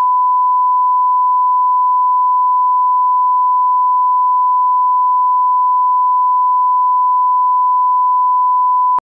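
Broadcast line-up test tone: a steady, pure 1 kHz sine tone run with colour bars as the audio level reference, cutting off abruptly near the end.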